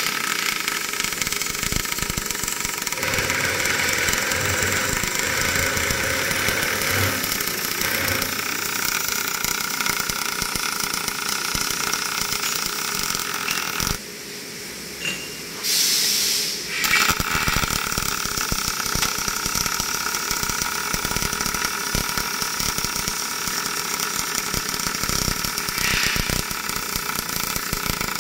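Robotic MIG welding arc on thin mild-steel radiator tubing, fed by an Aotai spatter-free welding power source, crackling steadily as the torch travels along the seam. About halfway through the arc stops for a couple of seconds, with a short hiss, then strikes again and goes on crackling.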